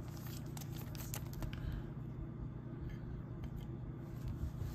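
Small clicks and light rustling of trading cards being handled, with a card set onto a clear plastic display stand. A steady low hum runs underneath.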